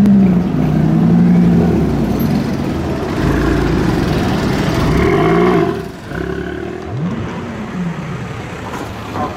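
Sports car engines revving and accelerating on a city street, the pitch climbing and falling in several short surges. The sound drops away about six seconds in, then more revs follow.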